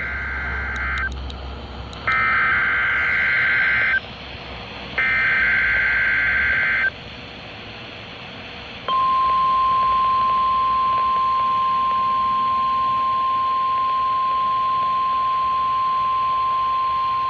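NOAA Weather Radio alert tones playing through a Midland HH54VP handheld weather radio's speaker for a required weekly test. One SAME digital header burst ends about a second in, then two more two-tone data bursts of about two seconds each follow. About nine seconds in, the steady 1050 Hz warning alarm tone starts and holds.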